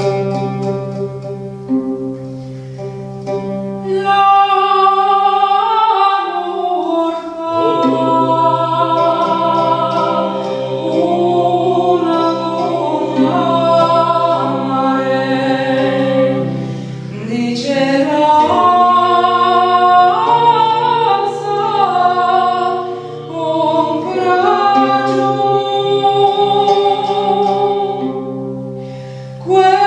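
A woman sings a slow, medieval-style melody over a steady low drone, with a round-backed lute plucked alongside. The voice comes in about four seconds in.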